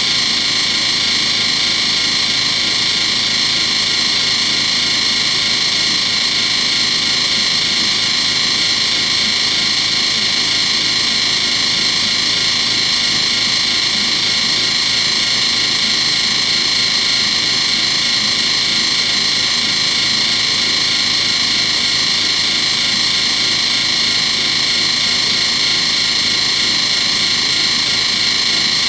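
Miele WMV960 front-loading washing machine running with a loud, steady mechanical noise and a high whine, which the owner takes for a spin and vibration fault.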